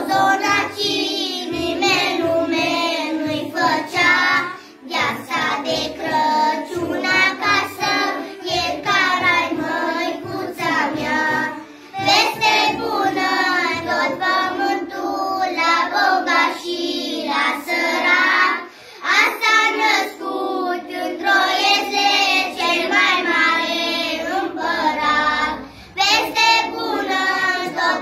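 A group of young children singing a song together in unison, with short breaks for breath between phrases about every seven seconds.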